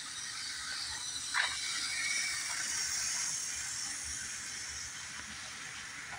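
Model train rolling past on the layout track: wheels and motor making a steady whirring rattle that swells and fades, with one sharp click about a second and a half in.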